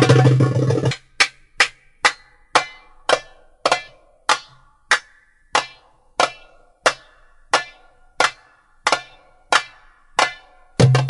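Dance music breaks off about a second in. A lone percussion instrument then strikes single ringing notes, about sixteen evenly spaced hits, slightly slowing, before the full drum-led music comes back right at the end.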